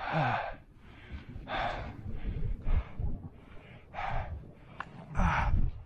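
A climber breathing hard, with a loud, rushing breath roughly every second and low thuds and rumbling underneath.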